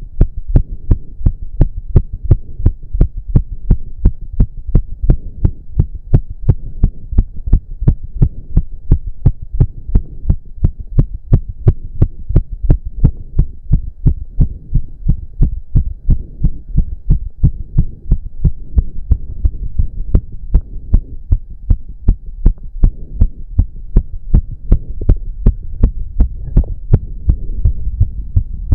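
A man's heart pounding fast and regularly, about three beats a second, racing from an intense cardio workout, over a steady low hum.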